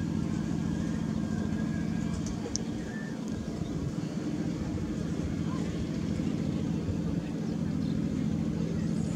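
A steady low motor hum, running evenly without change.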